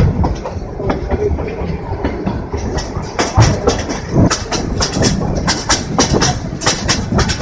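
Passenger train carriage running along the track, with a steady low rumble of wheels on rail and frequent irregular knocks and clatters from the wheels and the rattling carriage.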